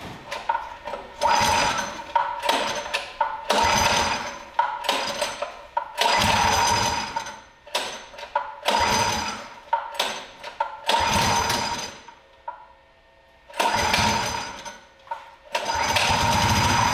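Brand-new Predator Ghost 212cc single-cylinder engine being pull-started for the first time, with a dozen or so rope pulls in a row, each cranking it over for about a second. Near the end it catches and keeps running steadily.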